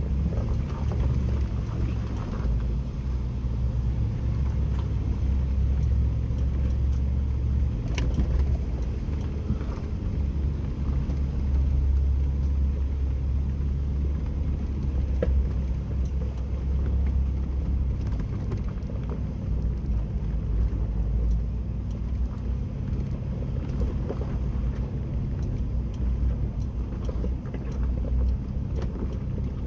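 Jeep Wrangler engine running at low speed with a steady low rumble as it crawls along an off-road trail, with a few sharp clicks, the clearest about eight seconds in.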